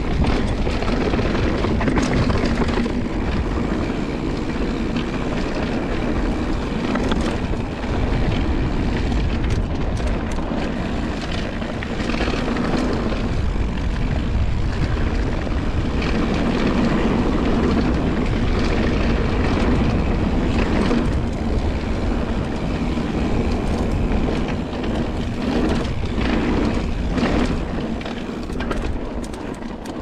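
Whyte G-170 mountain bike rolling fast down a dirt singletrack: steady tyre rumble on the trail and wind rushing over the action-camera microphone, with scattered short clicks and rattles from the bike over bumps.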